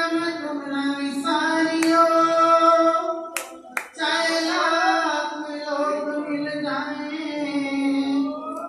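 A woman singing a Hindi devotional bhajan, holding long drawn-out notes. Two sharp clicks fall in a short break about three and a half seconds in.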